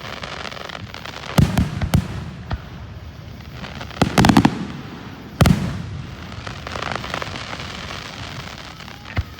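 Fireworks going off: scattered sharp bangs with crackling between them, a quick run of bangs about four seconds in, and a loud single bang a second later.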